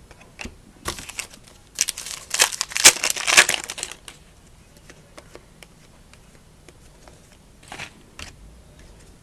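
Plastic trading-card pack wrapper crinkling and tearing as it is handled and opened, in a busy run of crackles from about a second in to about four seconds in, followed by a few faint ticks of cards being handled.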